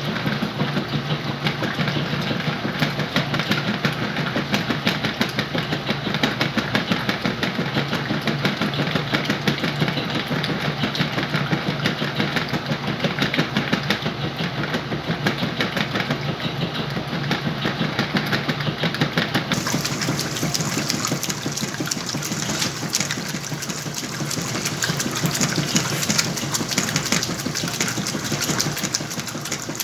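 Whirlpool washing machine running with a load of sheets and pillows, a steady mechanical churn with fast fine rattling and a low hum; a brighter hiss joins about twenty seconds in.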